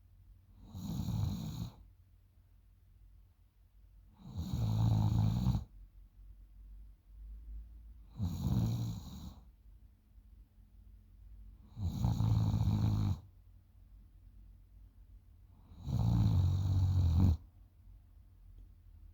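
A girl snoring in her sleep: five snores, one about every four seconds, each lasting about a second.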